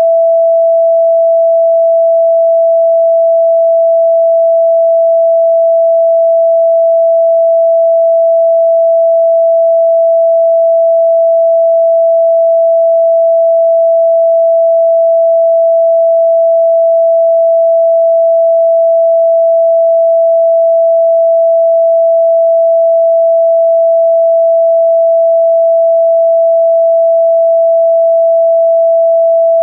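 A single steady, mid-pitched electronic sine tone, held without any change in pitch or loudness.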